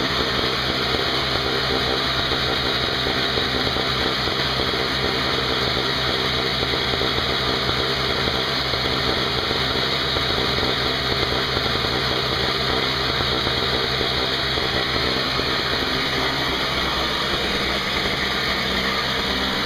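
Craftsman 5 hp two-stroke snowblower engine running steadily on its test run after a carburetor repair.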